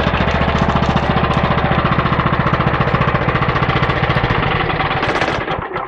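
14 hp 420cc single-cylinder sawmill engine running steadily with its clutch disengaged, in quick even firing pulses, then shut off near the end and dying away.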